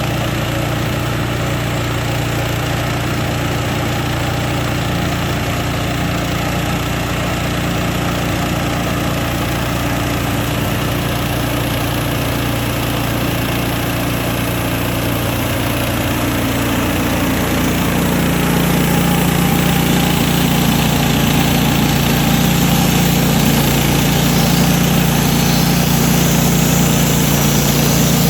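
Portable sawmill's engine running steadily, growing somewhat louder and changing pitch about two-thirds of the way through as the milling of a beam goes on.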